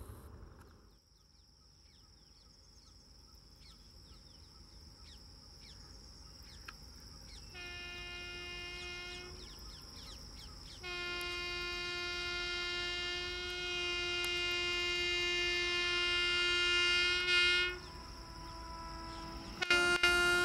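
WAP-7 electric locomotive's air horn sounding as the Rajdhani Express approaches: a short blast about seven seconds in, a long blast of about seven seconds starting near eleven seconds, and another short blast near the end. Under it the train's rumble grows steadily louder, with a high insect drone throughout.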